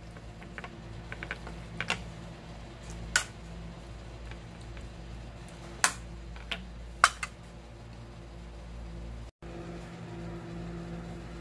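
Scattered light clicks and taps of a metal spoon against a woven tray and sauced tofu cubes as the food is pushed into place, with a few sharper clicks about three, six and seven seconds in, over a steady low hum.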